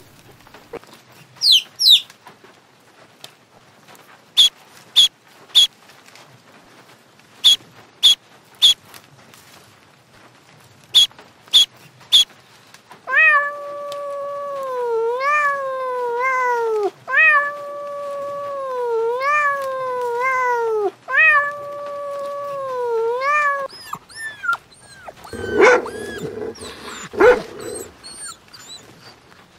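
Baby chicks peeping in short, high, evenly spaced chirps, then a cat meowing in about eight long, wavering calls. Near the end, dogs barking.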